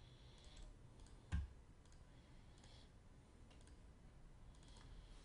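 Near silence with room tone, broken by one sharp click about a second and a half in and a few faint ticks.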